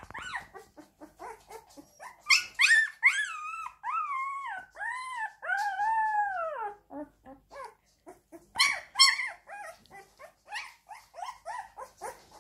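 Siberian husky puppy crying: a string of high-pitched whines and yelps, with a few long drawn-out wails that rise and then fall in pitch a couple of seconds in, followed by quicker, shorter whimpers and yips.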